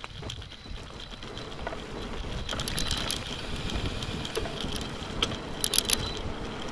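Electric mountain bike rolling over wet tarmac, heard from the camera rigged to its mudguard: steady tyre and wind noise, with sharp rattling clicks from the shaking mount in clusters about midway and near the end.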